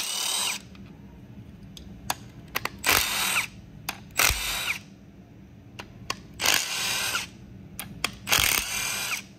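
Milwaukee cordless stubby impact wrench backing out the valley-cover bolts on a 6.2 V8 block, in five short bursts of about half a second each, its pitch rising in each burst. Small metallic clicks come between the bursts.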